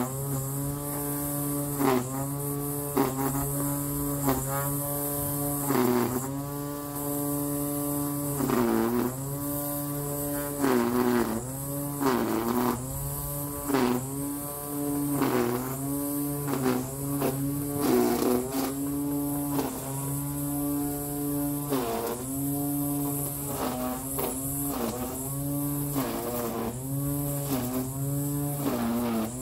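Motor of a garden power tool running steadily, its pitch dipping and recovering every second or two as it takes load.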